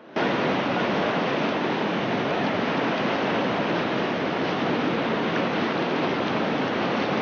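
Steady, loud rush of river whitewater, starting abruptly as if cut in.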